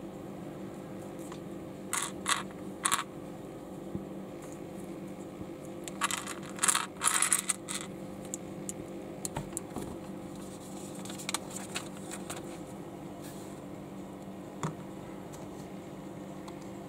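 Plastic LEGO bricks clicking and clattering as they are pressed together and handled: three sharp clicks about two seconds in, a quick cluster of clicks about six to seven seconds in, then a few scattered faint ticks. A steady low hum runs underneath.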